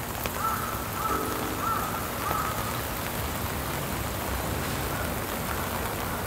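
Steady hiss of falling rain, with a few short high chirps in the first couple of seconds.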